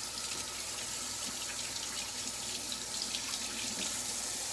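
Kitchen faucet running steadily into a stainless-steel sink while hands are washed under the stream, with light irregular splashing.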